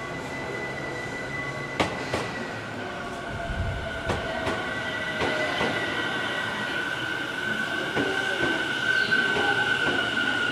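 Tobu 50000-series electric train running on the rails, with a steady high wheel squeal and several sharp rail-joint clacks, growing louder toward the end.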